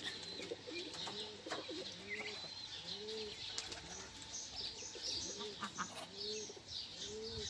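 Pigeons cooing over and over, a short low rising-and-falling coo about every half second to second, with small birds chirping high above it.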